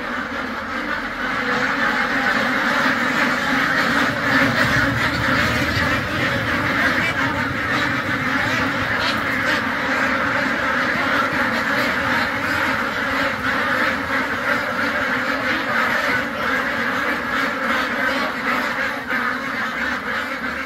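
A huge flock of white domestic ducks quacking all at once, a dense, continuous chorus of many overlapping calls.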